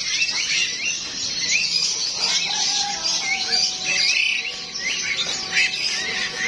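A chorus of many caged birds chirping over one another: short, high chirps repeating quickly and without a break.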